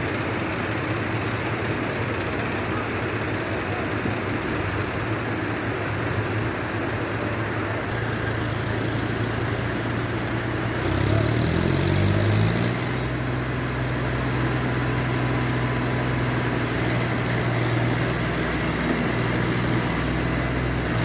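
Farm tractor diesel engine running at low speed. About eleven seconds in it revs up and gets louder for a second or so, then holds a steady drone.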